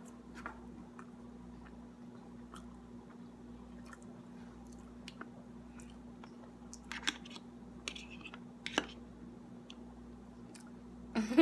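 Quiet chewing of sardines, with scattered light clicks of a metal fork against the container and a couple of sharper clicks in the second half, over a faint steady hum.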